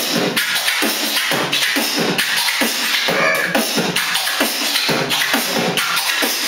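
Vocal beatboxing with a hand cupped at the mouth: a fast, unbroken run of percussive mouth sounds, about four strokes a second, with hissing between them.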